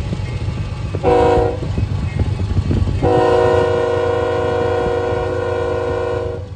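Diesel locomotive's multi-chime air horn: a short blast, then about two seconds later a long blast held for three and a half seconds, the short-then-long close of a grade-crossing horn signal. Under it runs the low rumble of the moving train.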